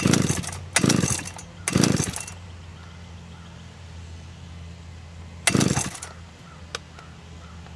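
Four quick pulls on a big chainsaw's recoil starter cord, three close together and one more a few seconds later, the engine turning over without catching. It is being cranked with no choke and the throttle held wide open to clear an engine believed flooded. A steady low hum underneath.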